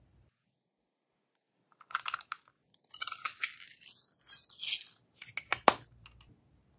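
Crinkly handling noise: a crackling run of fine crinkles and clicks starting about two seconds in, ending with one sharp click.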